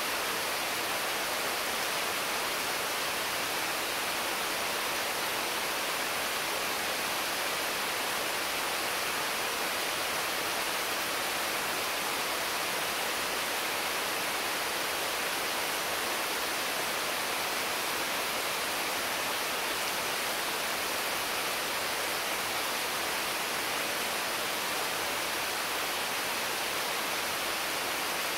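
Intense, constant rain falling on the leaves of mango and papaya trees: a steady, even hiss with no single drops standing out.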